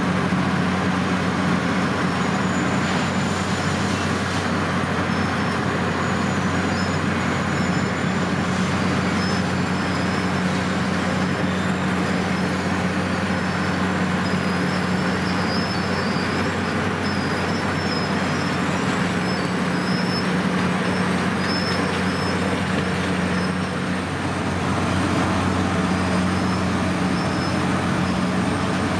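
Wirtgen W 250 large cold milling machine running, its diesel engine giving a steady low drone under a dense mechanical noise, with faint high squeaks coming and going.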